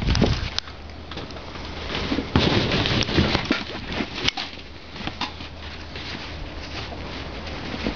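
Irregular rustling, clicks and knocks of handling close up against the quad's plastic bodywork, loudest a little over two seconds in, over a faint steady low hum.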